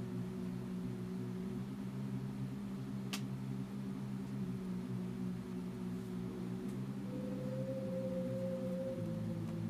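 A rock song playing back quietly in a slow passage of held, sustained chords. A higher held note joins about seven seconds in and the chord changes near the end. A single faint click about three seconds in.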